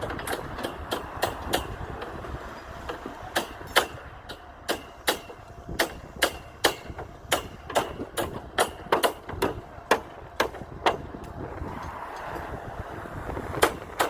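Hammering on construction formwork: many sharp, irregular knocks, about two or three a second in the middle and fewer near the end, over steady wind rumble on the microphone.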